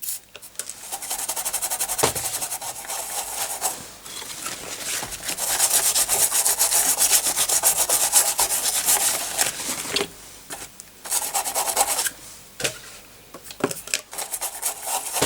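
Rapid back-and-forth scrubbing on a motherboard, cleaning the freshly soldered AGP connector area, with two short pauses in the second half.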